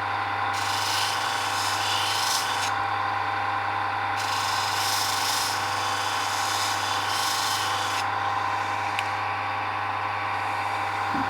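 A motor-driven abrasive tool runs steadily while the steel blade of a Leatherman Wave is rubbed against it, restoring the blade's satin finish. The rasping swells and eases in a few long passes over the even hum of the motor.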